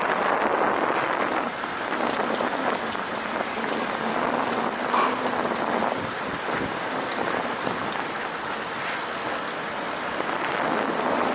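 Wind rushing over the microphone of a camera riding on a road bicycle: a steady noise that swells and eases a little.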